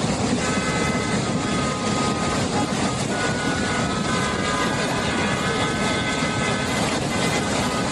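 A loud, steady roar of rushing flash-flood water, with several long steady tones held over it for most of the time.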